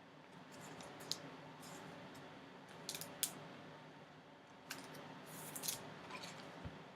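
Trading cards being handled: faint scattered clicks and light scrapes of card stock, with a brief rustle about three-quarters of the way through.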